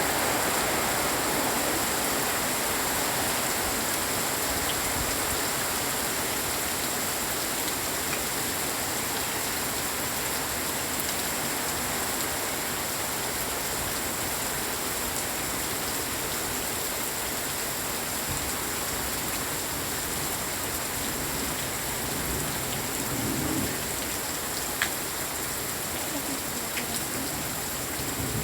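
Steady rain falling, an even hiss without pause, with a single sharp tick near the end.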